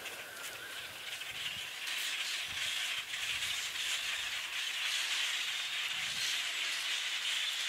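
A huge flock of small birds calling all at once, a dense steady chatter like a high hiss, growing louder about two seconds in.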